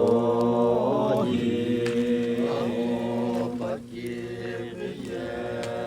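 Chant-like singing: voices holding long sustained notes with gliding changes between them, a little softer in the second half.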